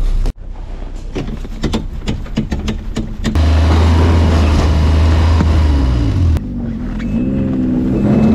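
Snowmobile engines: a run of clicks and knocks, then an engine running with a steady low drone that cuts off suddenly a few seconds later, followed by an engine note that rises and wavers as it is revved.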